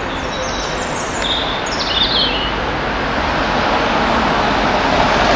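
1958 Krupp fireless steam locomotive moving slowly, with a steady hiss of steam that grows louder towards the end. A few short high chirps come in over it between about half a second and two and a half seconds in.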